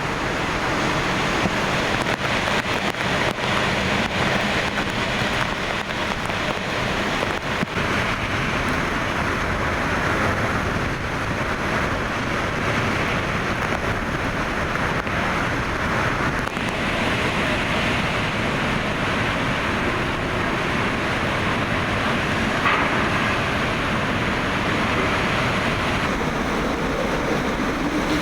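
Hurricane-force eyewall winds of a Category 3 hurricane blowing hard and steadily in a continuous loud rush.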